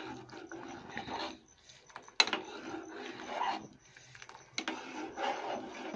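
A metal spoon stirs and scrapes through thick kheer, rice simmering in milk, in an aluminium pot, with a few sharp clinks against the pot about two seconds in and near the end.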